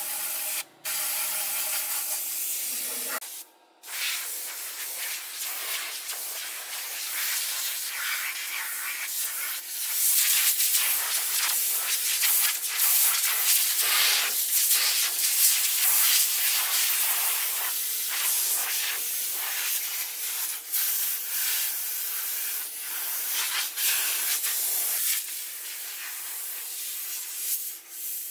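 A paint spray gun hissing as it sprays, in long passes that swell and ease, with a steady low hum underneath. The hiss breaks off briefly twice in the first few seconds and is louder in the middle stretch.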